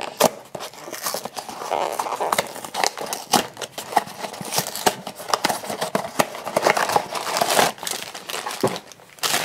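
A small cardboard blind box being opened by hand, its flaps scraping and clicking, and the black plastic bag inside crinkling as it is pulled out and handled, with many short crackles throughout.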